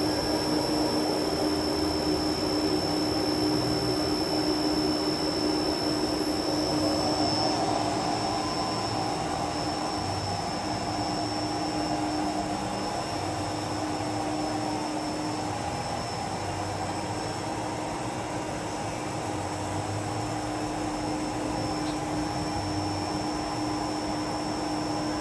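AXA FBZ 600 CNC machining centre running with its large cutter head spinning: a steady machine hum with a constant high whine.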